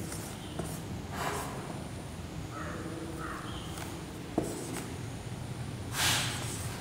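A marker writing on a whiteboard: quiet strokes with a sharp click about four seconds in. A couple of short breaths through the nose come between them.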